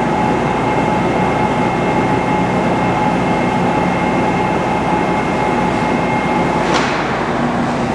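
Metal lathe running, taking a cut across a sawmill mandrel's fast collar, with a steady whine over the machine's noise. A short scrape about seven seconds in, after which the whine stops.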